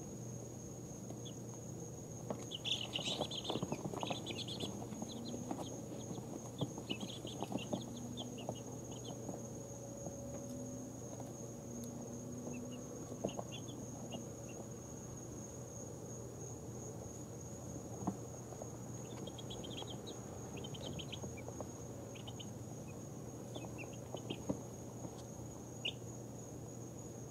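Two-week-old chicks peeping softly in short scattered bursts as they settle down to sleep, over a steady high-pitched whine and a low hum.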